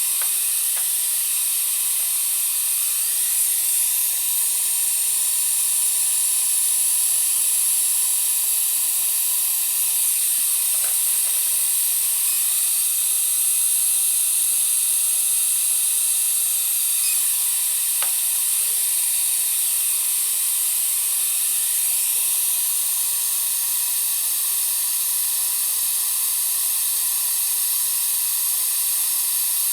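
Compressed-air dental equipment hissing steadily, high-pitched, with faint high tones that dip slightly in pitch now and then.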